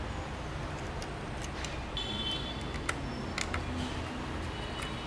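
A few light, sharp clicks and taps, such as small parts being handled, over a steady low background rumble.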